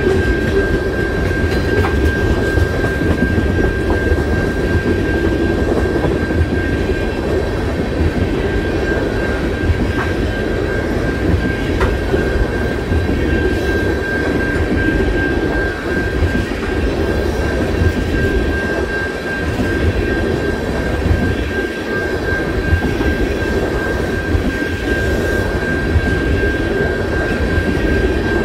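CN freight train rolling past: a steady rumble of wheels on rail with a few sharp clicks at rail joints, and a thin steady high squeal from the wheels running over it.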